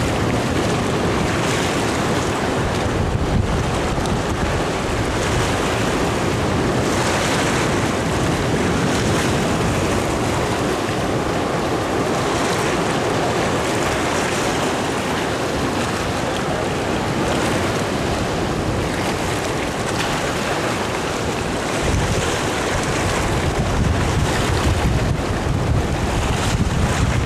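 Sea surf washing over intertidal rocks, with wind rumbling on the microphone; the rumble and the wash get louder near the end.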